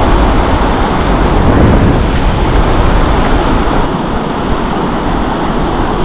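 Ocean surf breaking and washing up a flat sandy beach, a loud steady wash of noise, with wind buffeting the microphone.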